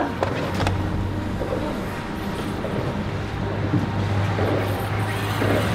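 Boat motor running steadily with a low hum while the boat is under way, with water rushing past the hull and wind on the microphone.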